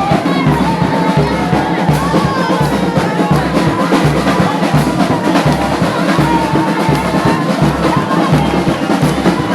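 Music with a steady drum beat and a melody line over it.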